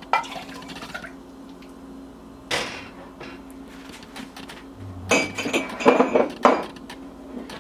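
Kitchenware clattering: a stainless saucepan and a cup knocking against each other and the stovetop. One knock comes about two and a half seconds in, and a cluster of clanks with a brief metallic ring between five and six and a half seconds in.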